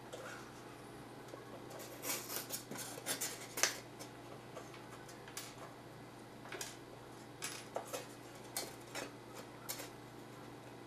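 Hands handling a block of extruded polystyrene foam with wooden cutting templates on a wooden worktable: a scatter of short clicks, taps and scrapes in several small clusters.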